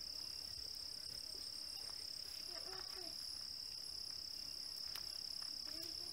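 Steady high-pitched drone of insects, one unbroken whine, with a faint brief call about halfway through.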